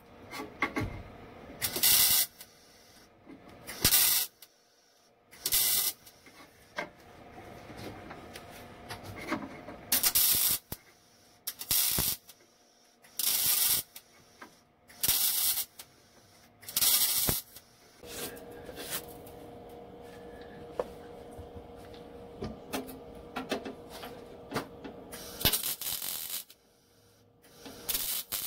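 MIG welder laying a series of short spot welds on sheet steel: about a dozen brief bursts of arc, each under a second, spaced one to two seconds apart, with a longer pause partway through.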